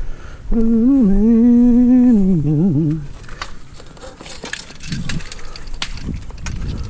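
A man humming a wavering, tuneless note for about two and a half seconds, ending in a falling wobble. After that come scattered light knocks and clicks, like scrap being handled.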